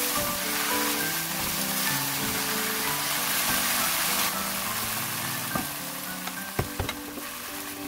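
Korean garlic chives sizzling as they are stir-fried in a frying pan, with background music. The sizzle eases after about four seconds, and a few sharp taps come near the end.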